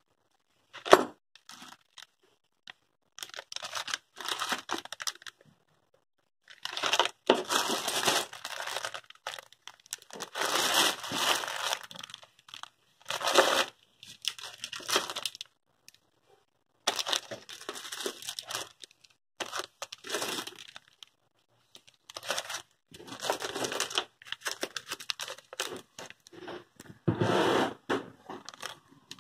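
Clear plastic parts bags crinkling and rustling as they are handled, in irregular bursts with short pauses between, and one sharp click about a second in.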